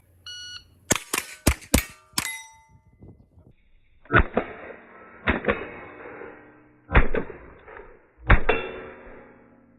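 Shot timer's start beep, then five quick rimfire rifle shots in under two seconds, the steel plates ringing as they are hit. Several seconds later come four louder metallic clangs, each ringing on as it dies away.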